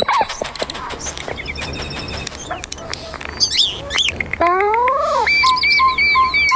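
Bird-like chirps and clicks, then a whistled call that rises and falls, followed by a run of short, evenly repeated piping notes, about three a second.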